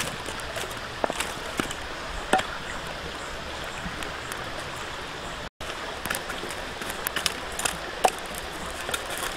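Stream flowing steadily over rocks, with scattered sharp clicks and crackles on top, the loudest about two seconds in. The sound drops out for an instant a little past halfway.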